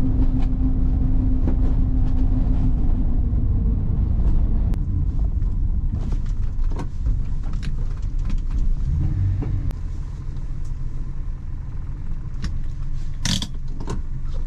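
Nissan Skyline C110 (Kenmeri) on the move: a steady low engine and road rumble, with scattered light clicks and one sharp knock near the end.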